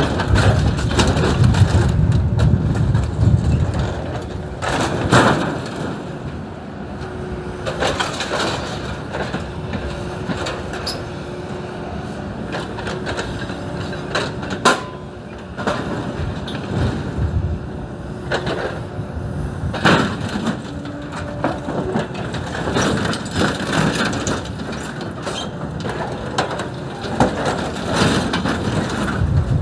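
Excavator running with a steady hum while it crushes and tears apart old scrap farm machinery. A heavy crunch comes in the first few seconds, then scattered sharp cracks and knocks of breaking metal.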